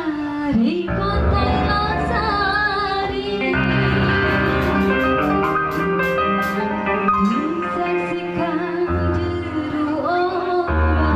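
Live band music for an Indonesian orkes song. A female singer ends a phrase at the start, then the band plays an instrumental passage with a wavering high melody over a strong low beat. Her voice comes back near the end.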